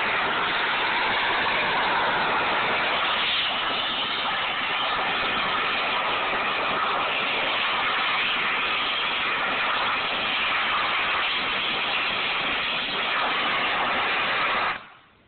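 Handheld blowtorch flame hissing steadily, shut off suddenly near the end.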